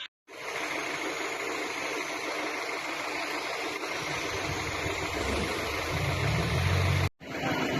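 An engine running steadily under a steady hiss, with a deeper rumble swelling over the last few seconds. The sound breaks off briefly just after the start and again near the end.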